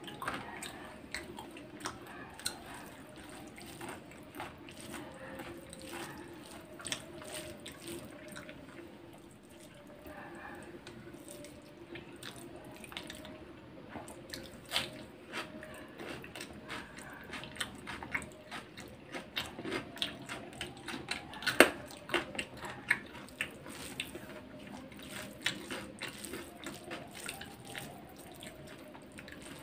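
Close eating sounds: a person chewing a mouthful of chicken biryani, with many short, wet mouth clicks and smacks, thicker in the second half and loudest a little past two-thirds of the way through, along with the occasional squish of fingers mixing rice and gravy.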